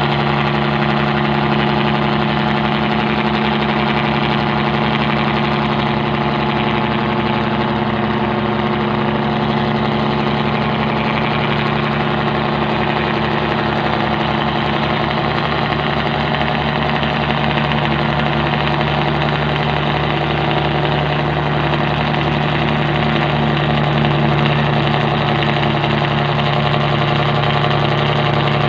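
Fishing boat's engine running steadily at a constant speed, with a fast, even firing beat and no change in pitch.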